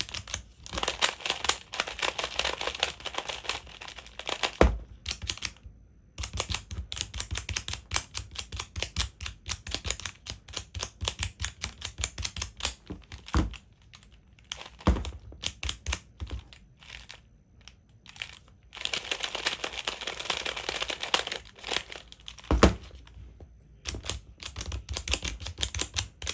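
Plastic tiles of a 3x3 Rubik's Cube sliding puzzle being slid rapidly, a fast, continuous run of small clicks and clatter. There are denser spells of rattling near the start and about two-thirds of the way through, and a few sharper single knocks.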